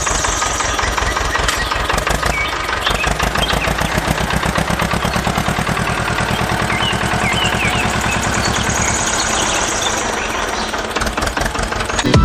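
An engine running steadily with a rapid, even putting beat, like a small tractor engine idling. Short bird chirps come and go over it.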